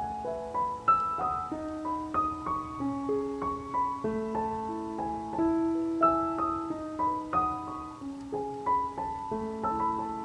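Background piano music: a gentle, unhurried melody over held chords, with notes struck one after another.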